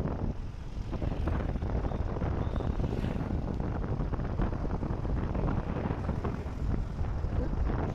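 A vehicle travelling along a road, with a steady low rumble of road and engine noise and wind buffeting the microphone.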